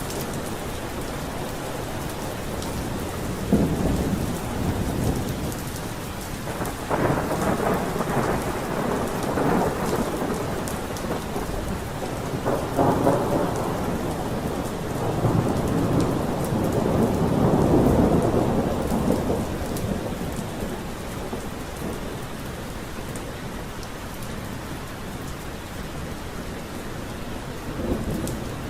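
Steady rain falling through a thunderstorm, with several long, low rumbles of thunder that swell and fade. The longest and loudest rumble comes a little past the middle, and a short one comes near the end.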